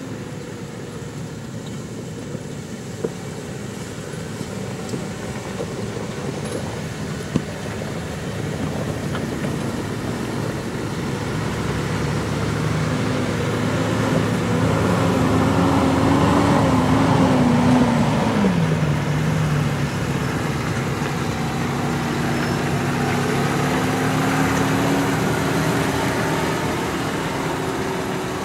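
Off-road SUV engines running as the vehicles drive past on a gravel track, swelling to the loudest point just past the middle, where the engine note drops sharply; another engine's note rises again afterwards.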